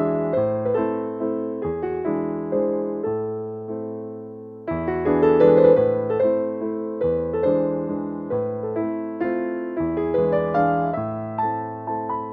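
Background piano music: a gentle melody of struck, fading notes, with a louder chord coming in about five seconds in.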